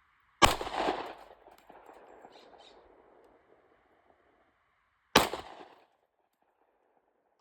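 Two pistol shots from a Glock 27 .40-calibre subcompact, about five seconds apart, the first trailing off in an echo for a couple of seconds. A third shot goes off right at the end.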